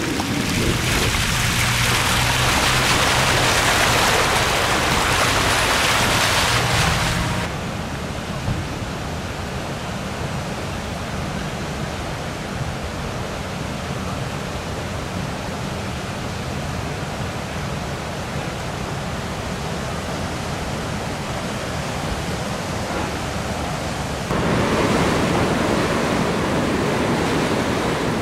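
Rushing floodwater, a steady noise of water that drops suddenly about seven seconds in and rises sharply again near the end.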